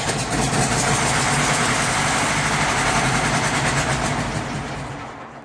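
Zetor 8045 tractor's diesel engine running just after a cold start, following a year standing unused. It dies away near the end and stops.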